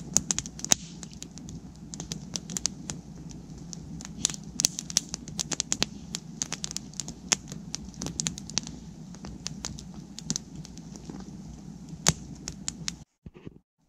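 Wood campfire crackling: a dense run of sharp, irregular cracks over a steady low rush of the burning fire. It cuts off abruptly near the end.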